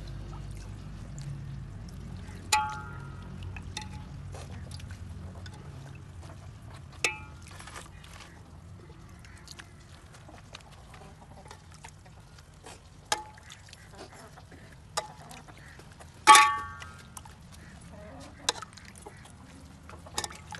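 Large metal spoon clinking against a steel serving tray while mixing broth-soaked flatbread pieces: about seven sharp, ringing clinks a few seconds apart, the loudest about sixteen seconds in.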